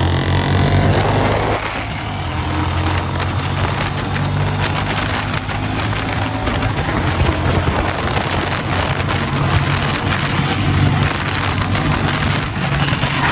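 Royal Enfield Bullet 350 single-cylinder motorcycle engines running hard under acceleration in a drag race. The engine note drops about two seconds in, then runs on steadily at full throttle.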